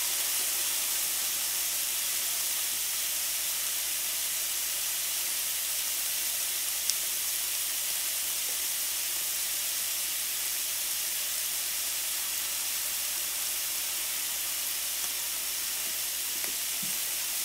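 Red peppers, shallots and sun-dried tomatoes sizzling steadily in a hot sauté pan as they soften, with one brief sharp tick about seven seconds in.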